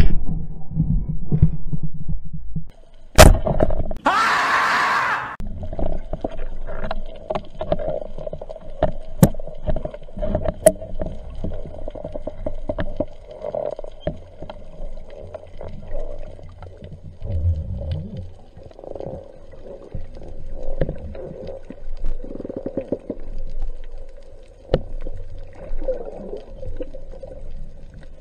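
Underwater sound at a speargun-mounted camera just after a shot: a sharp click about three seconds in, then about a second of loud hissing, then steady underwater rumble and water movement with many scattered sharp clicks and crackles.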